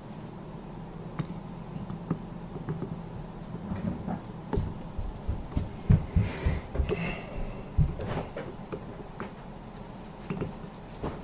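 Irregular light taps, clicks and knocks of small tools and parts being worked by hand while pinning a straight razor's scales, busiest in the middle few seconds.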